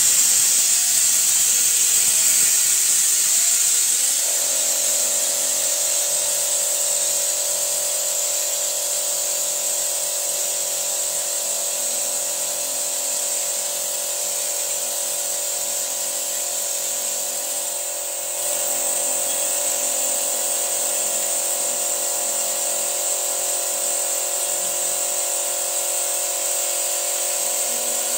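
Steady hiss with a constant whine joining about four seconds in, from the engine bay of a Toyota with its engine being carbon-cleaned: cleaner from a pressurised canister is fed through a hose into the engine.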